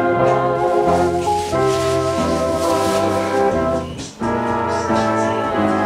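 Instrumental background music: sustained chords that change about every half second, with a short break about four seconds in.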